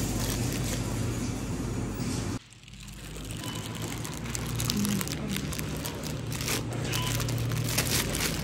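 Supermarket background noise: a steady low hum with scattered clicks and rattles from the shopping trolley and its contents being handled. The sound drops away suddenly about two and a half seconds in, then builds back up.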